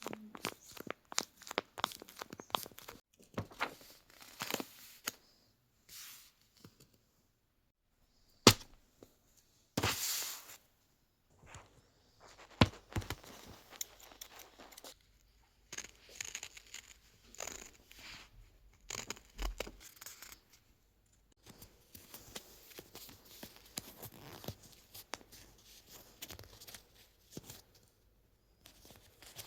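Paper and tape being handled and torn, a run of short rustles, rips and clicks. There is a sharp click about eight and a half seconds in and a longer rip about ten seconds in.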